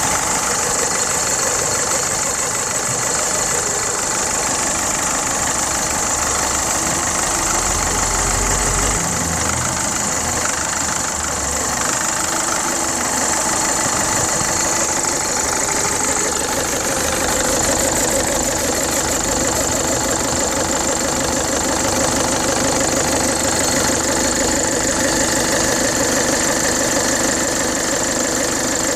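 Opel Astra J 1.7 CDTI four-cylinder diesel engine running steadily, with a steady high-pitched hiss-like whine over the engine note: the unexplained noise the owner is asking about. A brief low rumble comes in about eight seconds in.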